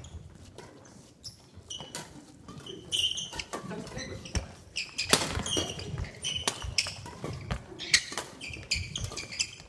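Badminton doubles rally: sharp racket strikes on the shuttlecock, with sneakers squeaking and thudding on the wooden court floor. The play picks up about three seconds in.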